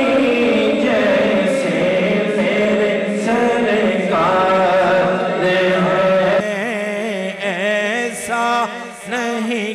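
A man singing an unaccompanied Urdu naat into a microphone, drawing out long sung notes. For about the first six and a half seconds a steady held chord of several voices lies under him. Then it drops away, leaving his solo voice wavering quickly up and down in pitch.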